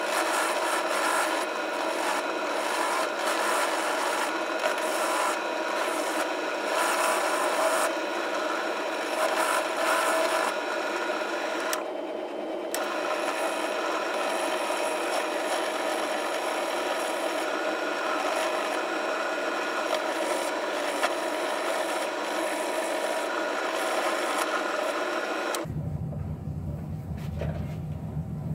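Benchtop drill press running, with a steel ball-peen hammer head pressed against the attachment spinning in its chuck: a steady abrasive scraping over the motor's hum as the rust is stripped off the head. The scraping lets up briefly about twelve seconds in. About three seconds before the end it stops and a low rumble is left.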